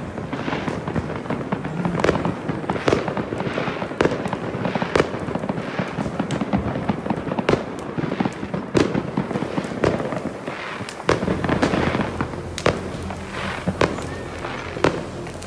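Fireworks going off all around: many sharp bangs and crackles at uneven intervals, often less than a second apart, over a dense noisy background.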